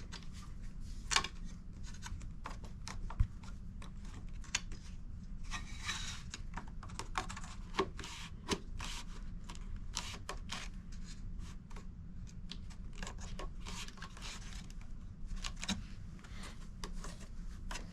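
Irregular light clicks, taps and rubbing from plastic sluice mats being handled and fitted into a sluice box, over a low steady hum.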